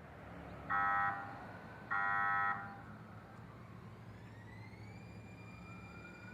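Light rail trolley sounding its horn twice, a short blast then a longer one, followed by a rising electric motor whine that levels off as the train accelerates away over a low rumble.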